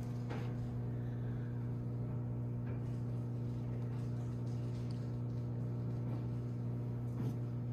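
Steady low electrical hum, one unchanging tone with fainter overtones above it, with a few faint clicks.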